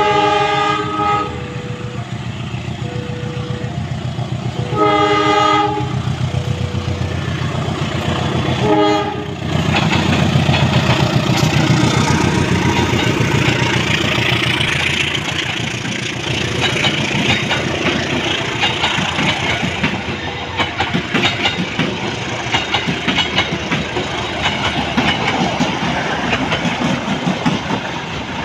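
A diesel locomotive's horn sounds three times: two blasts of about a second, then a short one about nine seconds in. A level-crossing warning bell dings about once a second underneath. The KA Motis Utara train then passes close by, with its engine running and its wheels clattering steadily over the rail joints.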